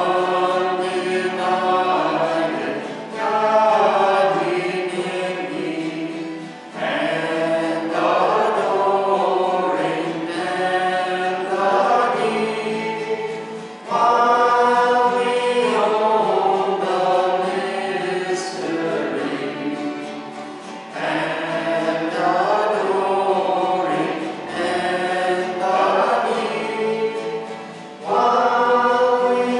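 Choir singing a hymn in phrases a few seconds long, with a steady low held note beneath the voices.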